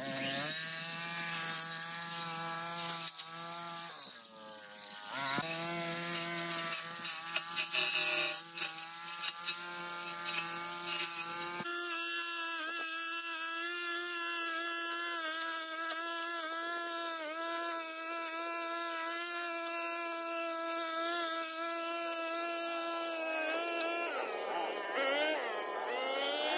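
Backpack brush cutter's small petrol engine running at high throttle. It dips and picks up again about four seconds in, and once more near the end.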